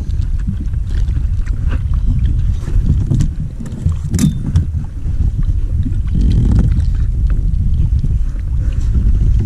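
Wind buffeting the microphone on open water, a steady low rumble, with a few small ticks and a sharper click about four seconds in.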